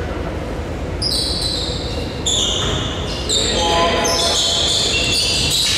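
Basketball being played on an indoor court: a ball bouncing and a rapid run of high-pitched sneaker squeaks on the floor starting about a second in, echoing in a large gym.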